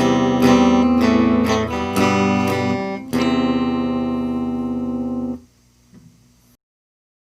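Clean-toned Epiphone electric guitar strummed through a small combo amp: a run of chord strums, then a final chord that rings for about two seconds before it is muted.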